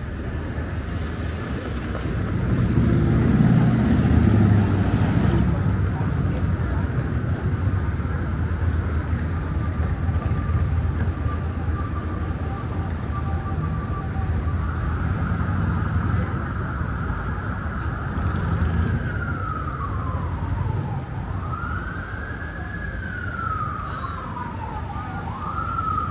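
Downtown street traffic running, with a vehicle passing loudly about three seconds in. In the second half an emergency vehicle siren comes in, holding one pitch at first and then wailing, sliding slowly down and up.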